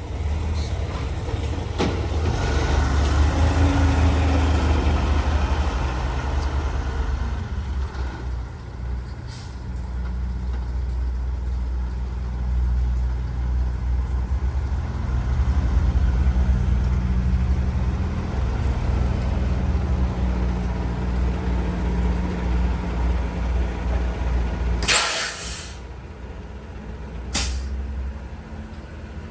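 Heavy truck's diesel engine running, its level swelling and easing, then a loud hiss of air from the air brakes about 25 seconds in. After the hiss the engine drops back, and a second, shorter hiss follows.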